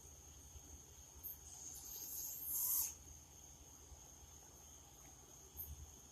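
An owl gives a harsh, hissing screech that builds for about a second and a half and stops abruptly, over a steady faint high-pitched whine.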